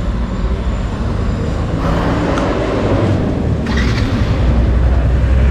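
Low, steady rumble of motor vehicle engines and road traffic, growing louder in the second half, with two brief rushing swells in the middle.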